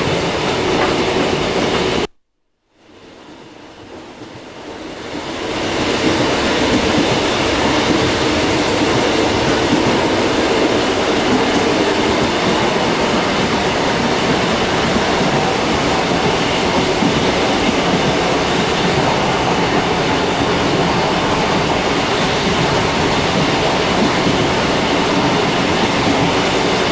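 A passenger train running along the track, heard from the vestibule beside an open carriage door: a loud, steady noise of the train moving. About two seconds in, the sound cuts out briefly, then fades back up to full level over the next few seconds.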